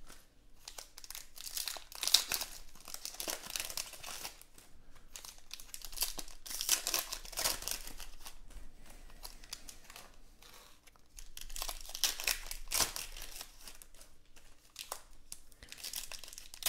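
Foil wrappers of Panini Contenders football card packs crinkling and tearing as they are ripped open by hand, in irregular spurts with quieter stretches between.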